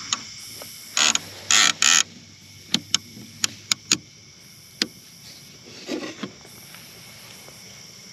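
A fishing rod being pulled out of a plastic flush-mount rod holder on a kayak: a few rustling scrapes, then a run of sharp, irregular clicks and knocks from the rod and its baitcasting reel, answering a bite.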